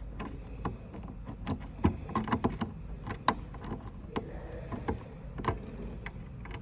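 Irregular small metallic clicks and taps of screws being handled and set into a card reader mount on a vending machine, busiest around two to three seconds in.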